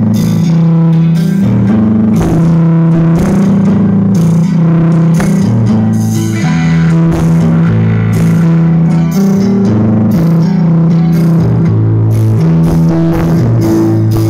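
Loud rock-style music with guitar, drums and a heavy bass line stepping from note to note, played through a big 'horeg' parade sound system stacked with many subwoofers.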